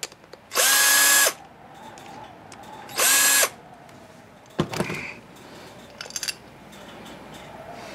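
Cordless drill-driver backing out carburetor cover screws in two short whirring bursts, the first about half a second in and the second about three seconds in, each spinning up quickly. A brief clatter follows about four and a half seconds in.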